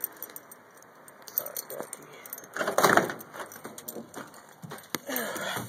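Door of a 1985 Chevy K20 pickup being unlatched and pulled open: a loud clatter of clicks and knocks about three seconds in, then scattered smaller clicks and knocks.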